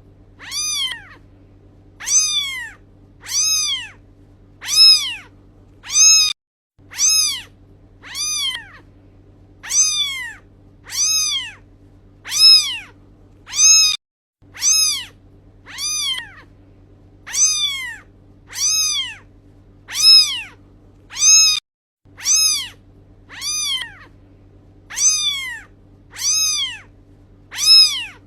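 Cat meowing over and over, short high meows that rise and fall in pitch about every second and a half, with a steady low hum beneath. The same few seconds of recording repeat as a loop.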